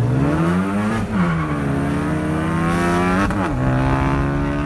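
Turbocharged Ford Focus ST four-cylinder with an aFe Takeda 3-inch exhaust and Agency Power downpipe accelerating: the revs climb over about a second and drop with a gear change, rise and fall quickly again a little past three seconds, then hold steady.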